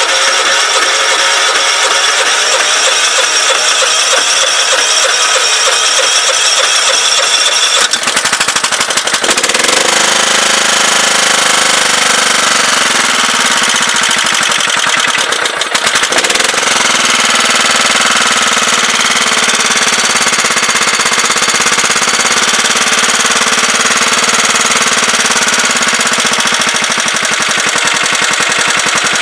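Kohler Command 15 HP lawn-tractor engine cranked by its electric starter for several seconds, catching about eight seconds in and then running with a loud, rapid clatter. The clatter comes from hydraulic lifters that have drained down while the engine sat, typical of a cold start after it has been standing a while.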